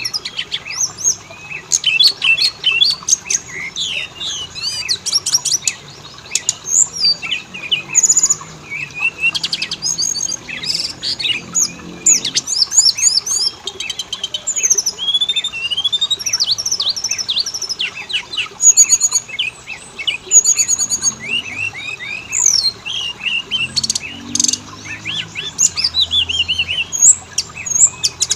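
Oriental magpie-robin singing a continuous, varied song of quick chirps, whistled sweeps and rapid trills, loud and without a break.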